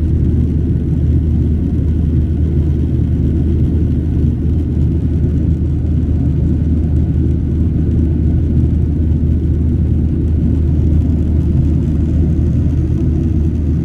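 Steady low roar inside the cabin of a Boeing 737-800 in flight: its CFM56-7B engines and the airflow over the fuselage, heard from a seat over the wing.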